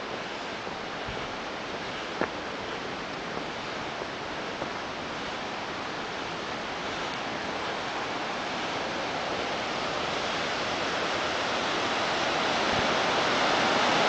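Rushing water of the Leukbach waterfall, a steady rush that grows steadily louder toward the end. A single faint click about two seconds in.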